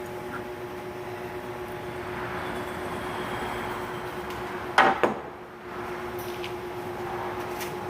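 Steady background hum of a shop, with two sharp knocks close together about five seconds in as a part is worked loose and pulled out from under the hood.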